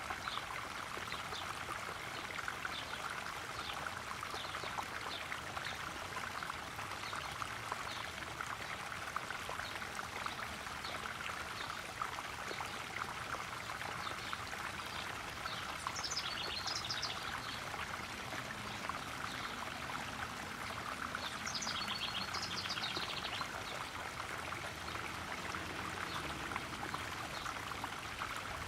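Garden koi pond's small waterfall splashing and trickling steadily. Two short high chirps, likely a bird, come through about halfway through and again a few seconds later.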